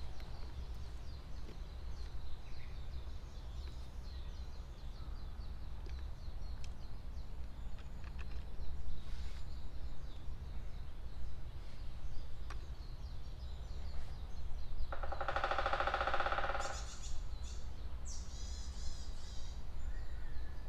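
Wild forest birds chirping faintly over a low steady rumble. About fifteen seconds in comes one loud, drawn-out harsh bird call lasting under two seconds, followed shortly by a brief high rapid phrase.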